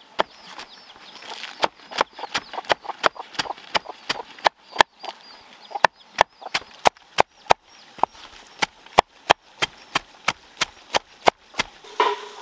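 Knife chopping a rolled bundle of leafy greens on a wooden block, a steady run of sharp strokes at about three a second.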